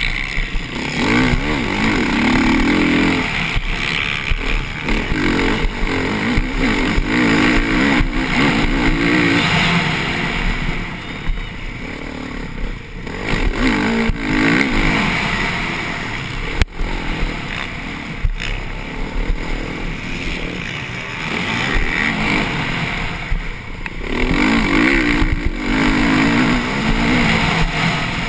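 Motocross bike's engine heard from an onboard camera on the bike, revving hard and falling back again and again as the rider accelerates, shifts and backs off over the track. A single sharp knock stands out about two-thirds of the way through.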